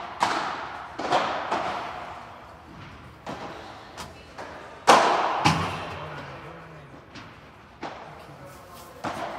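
Padel ball being struck by rackets and bouncing off the court's floor and glass walls during a rally, a quick series of sharp pops that echo in the hall; the loudest comes about five seconds in.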